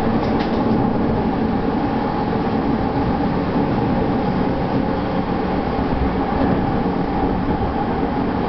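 Steady running noise inside a Tokyo Waterfront Area Rapid Transit 70-000 series commuter train car travelling at speed: the rumble of wheels on rail with a steady hum under it.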